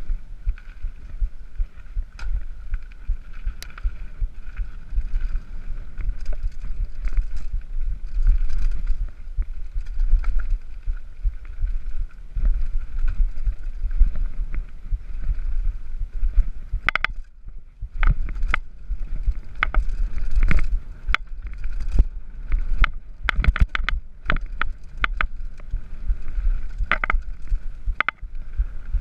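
Mountain bike descending a dirt trail at speed: low rumbling wind on the microphone under a steady run of rattling knocks from the bike over bumps. The knocks come thicker and sharper from a little past halfway on.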